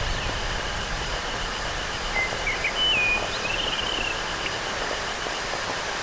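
Synthesized rainforest ambience made with software synths such as Serum, sequenced in Midinous. A steady rain-like hiss runs under a high, evenly pulsing cricket-like tone, and a short warbling bird-like call glides in about two seconds in.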